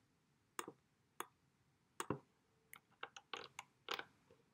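Computer mouse clicking: about ten short, sharp clicks at irregular intervals, several in quick succession around three to four seconds in, as a drawing is made and a colour picked on screen.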